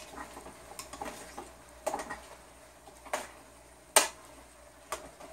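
Spoon stirring tomato paste into browned meat in a stainless steel stockpot, knocking against the pot a few times at uneven intervals, the loudest knock about four seconds in.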